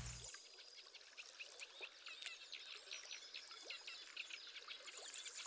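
Faint chorus of small birds chirping and calling, many short quick notes overlapping.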